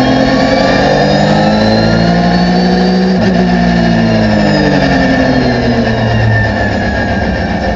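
Porsche 911 GT3 R race car's flat-six engine heard from inside the cockpit, revving up under power with a quick upshift about three seconds in. It revs up again, then eases off and drops in pitch as the car slows near the end.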